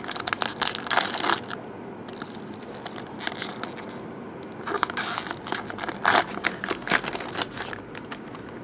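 Trading-card packaging crinkled and crunched by hand, in two spells of crackling about a second and a half long, one at the start and one about five seconds in, with quieter handling noise between.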